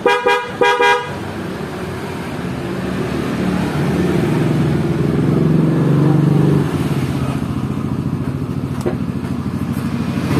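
Two short electric horn beeps, then a motorcycle engine running, its sound swelling in the middle and dropping back about six and a half seconds in.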